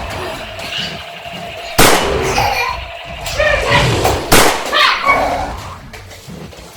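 Two sharp bangs, the first about two seconds in and the second about two and a half seconds later, with short vocal sounds between and after them.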